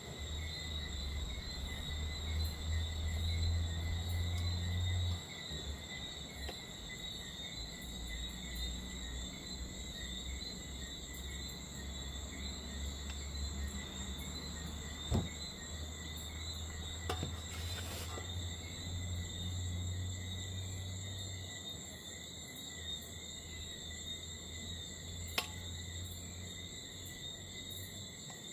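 Night insects, crickets, trilling steadily in a high, even chorus over a low rumble. A few sharp knocks come through, two near the middle and one near the end.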